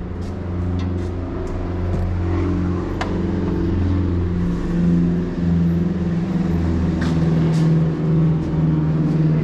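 A car engine running steadily at idle, its hum wavering slightly in pitch, with a few light clicks.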